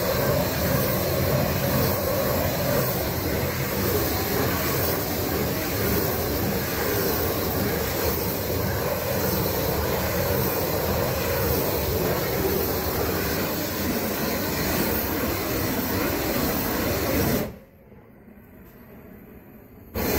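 Propane weed-burner torch running with a loud, steady rush of flame as it heats and shrinks plastic boat shrink wrap; it stops suddenly about three seconds before the end.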